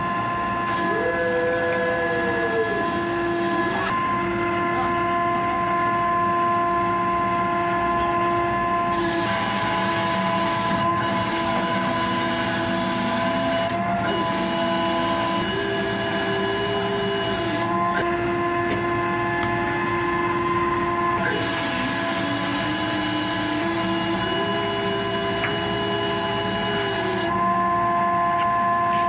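Machinery running steadily with several droning whines. One whine shifts up to a higher note for a couple of seconds and drops back, three times, and a high hiss comes and goes.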